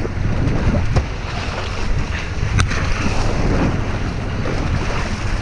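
Wind buffeting the microphone over choppy sea washing against a small boat, with two sharp knocks, about a second in and again about two and a half seconds in.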